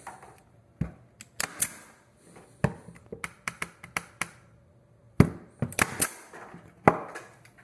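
23-gauge pin nailer firing pins through a wooden shelf cleat into the wall: well over a dozen sharp shots in irregular clusters, the loudest about five seconds in.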